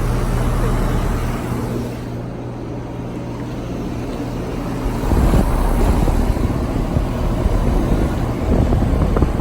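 Two residential air conditioner condensing units, a Payne and a Ruud, running: a steady compressor hum under the whoosh of the condenser fans. From about five seconds in, gusty wind on the microphone adds a louder low rumble.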